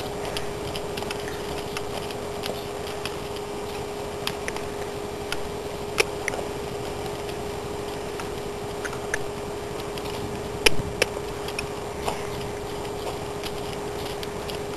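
Hooves of a cantering horse on round-pen dirt: irregular light clicks and knocks, the sharpest about six seconds in and again near eleven seconds, over a steady hum.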